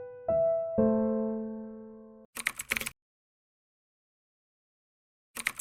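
Slow piano notes ringing and fading, with two new notes struck in the first second, cut off abruptly a little over two seconds in. Then a brief crackly burst of noise, dead silence, and another short burst at the very end.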